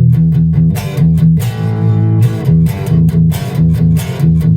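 Westone Concord II electric guitar played through a Roland Cube 30 combo amp on a crunch (light overdrive) setting, chords strummed in a quick, even rhythm.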